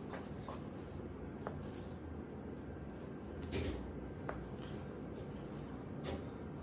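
Chef's knife trimming raw fish fillets on a plastic cutting board: a few soft taps and scrapes of the blade against the board, the clearest about three and a half seconds in, over a steady low hum.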